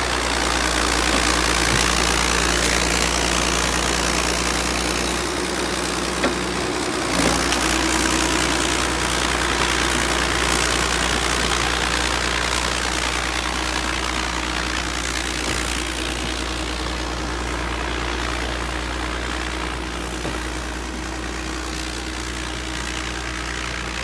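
Crawler bulldozer's diesel engine running steadily while it works, its note stepping up slightly about seven seconds in, then gradually growing quieter in the second half.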